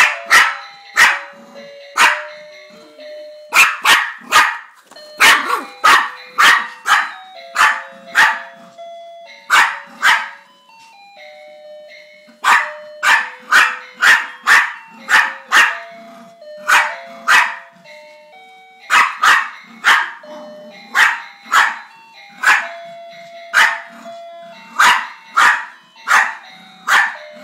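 Yorkshire terrier barking over and over in quick runs of several barks with short pauses, at an animated saxophone-playing Santa figure that plays a simple electronic jazz melody underneath.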